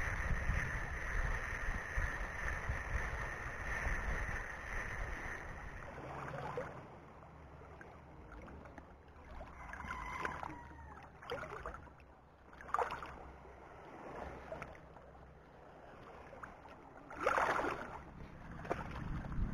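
Wind buffeting the microphone over small waves lapping in shallow water along a rocky shore. It eases after about six seconds, leaving a quieter wash with a few short sharp noises, the loudest near the end.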